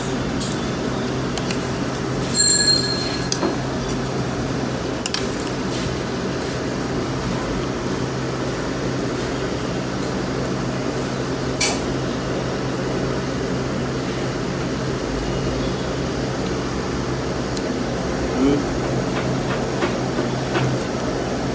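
Steady hum and background din of a small eatery, with one ringing metallic clink of tableware about two and a half seconds in and a single sharp click near the middle.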